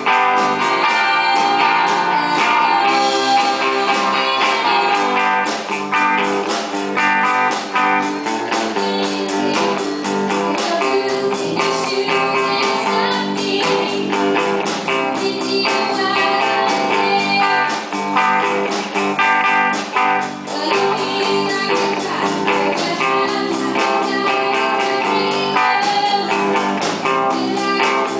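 Live band playing a blues-rock song: electric and acoustic guitars strumming over a drum kit, with a girl singing into a microphone.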